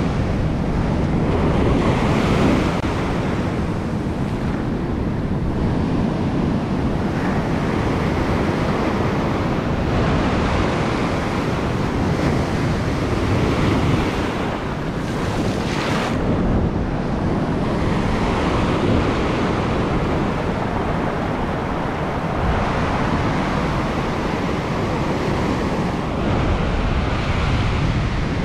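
Ocean surf breaking and washing in over the shore in a continuous rush of foaming waves.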